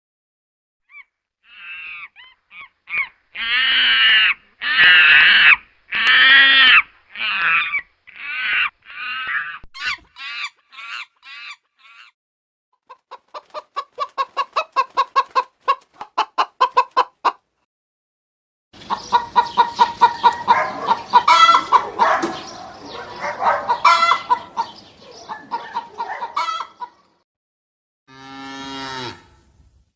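Chickens calling: a string of loud squawking calls for about ten seconds, then rapid, evenly spaced clucking, then a dense stretch of clucking and cackling. A single shorter, lower call follows near the end.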